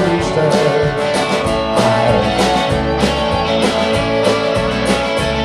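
Live band playing an instrumental passage: acoustic and electric guitars strummed over a steady drum beat.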